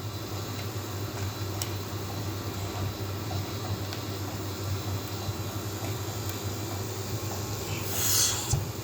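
Steady low mechanical hum of running test equipment, with a short burst of hissing air about eight seconds in.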